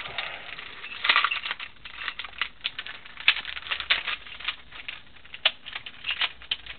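Plastic 3x5x7 twisty puzzle built from joined 3x3x5 and 3x4x5 cubes being turned by hand: irregular clicks and clacks of its layers turning.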